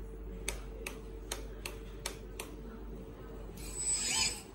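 A run of sharp mechanical clicks, a little under half a second apart, over a faint steady hum, followed near the end by a brief louder rushing noise.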